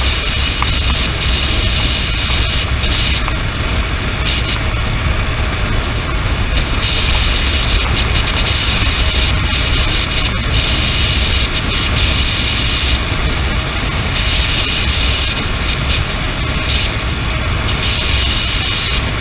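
Riding a Honda CB motorcycle at highway speed: steady wind rush buffeting the rider's camera microphone over the drone of the engine and tyres. A higher hiss swells and fades every few seconds.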